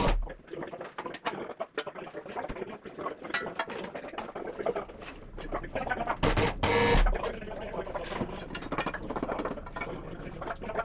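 Workshop noise: irregular metallic clicks and knocks, with a loud knock at the start and two short, louder bursts of noise about six and seven seconds in.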